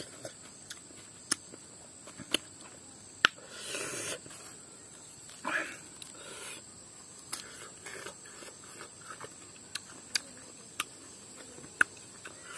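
A steady high-pitched insect drone, with scattered sharp clicks and a couple of brief rustles.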